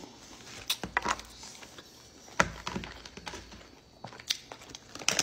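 Close-miked eating of soup dumplings: quiet chewing and slurping, broken by a few sharp clicks of a metal spoon against a plastic tray. The loudest click comes about halfway through.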